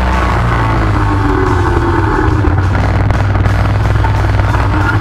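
ATV engine running steadily while riding, with a slowly shifting drone.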